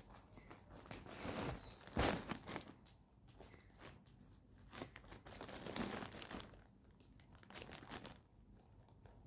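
Plastic mailer bag crinkling as it is handled and cut open with scissors, in faint irregular bursts of rustling; a short, louder crackle about two seconds in.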